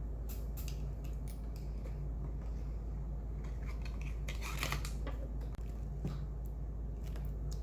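Small cosmetic items and their packaging being handled: scattered light clicks and rustles, with a longer rustle about halfway through, over a steady low hum.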